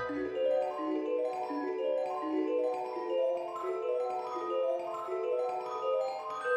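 Background music: a bell-like mallet or celesta-type instrument playing a steady run of short notes that step up and down.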